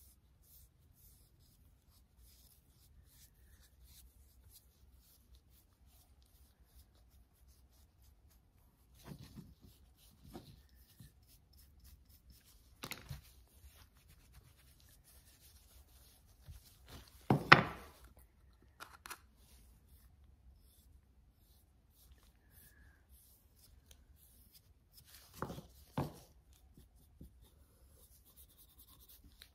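Quiet handling sounds of brushing and wiping wood stain into a carved wooden chair part: faint scratchy brush strokes and rag rubbing, with a few short knocks as the piece and tools are handled on the workbench, the loudest a little past halfway.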